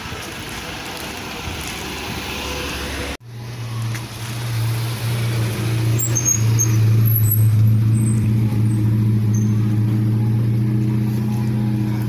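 An abrupt cut about three seconds in ends a steady outdoor background noise. After it, an engine runs with a steady low drone that grows louder over the next few seconds and then holds.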